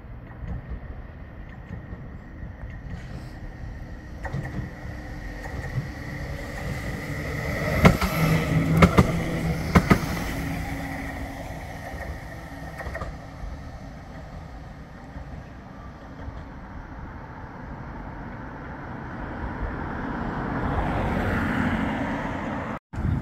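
Bombardier Flexity 2 tram approaching, passing and running away on ballasted track, with a steady motor whine and three sharp clacks from the wheels on the rails about eight to ten seconds in. Near the end, passing road traffic rises and fades.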